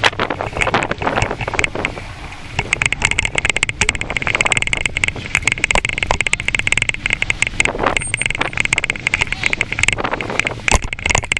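Bicycle riding over paving, its metal wire front basket and frame rattling in a dense run of small clicks, with low wind rumble on the microphone.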